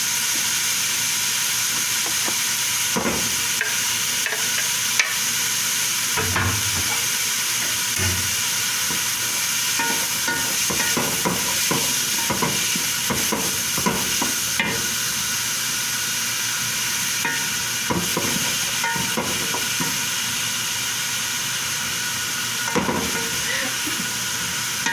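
Garlic and onion sizzling as they sauté in hot oil in a pan, with a utensil scraping and clicking against the pan now and then as they are stirred.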